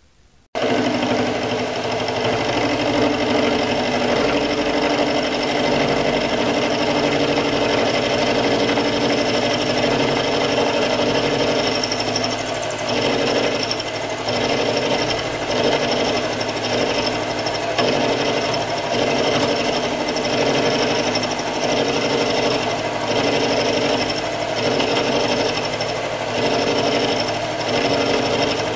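Optimum D180 x 300 Vario mini lathe switched on about half a second in and running steadily, an end mill in its spindle milling a block held in a vise on a milling slide. The machine's steady whine carries several tones, and from about the middle it rises and falls regularly about once a second.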